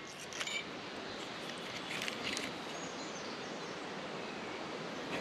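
Low, steady background hiss with a few faint light clicks.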